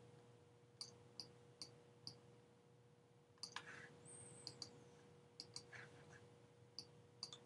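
Faint, irregular clicks of a pen stylus tapping and striking on a writing tablet, about a dozen in all, over a faint steady hum.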